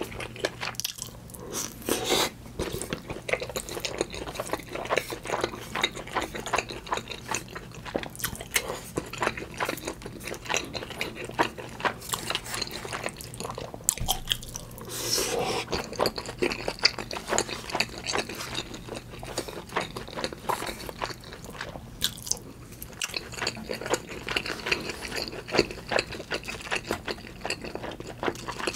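Close-miked chewing of instant black-bean-sauce noodles topped with spicy pepper tuna: a dense, irregular run of quick mouth clicks and bites, with a louder stretch about halfway through.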